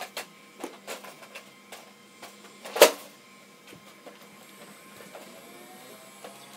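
Hard plastic clicks and knocks from toy Nerf blasters being picked up and handled, with one loud sharp knock about three seconds in.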